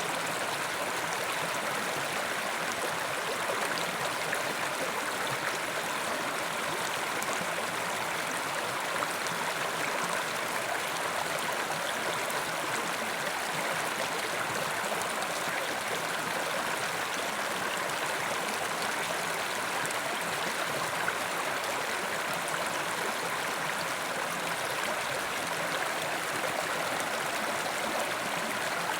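Mountain river rushing and gurgling over rocks, a steady, even flow of water.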